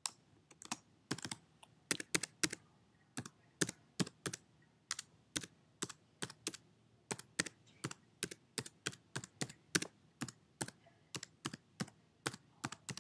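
Typing on a computer keyboard: separate key clicks, a few a second, in uneven runs with short pauses, as a web address is keyed in.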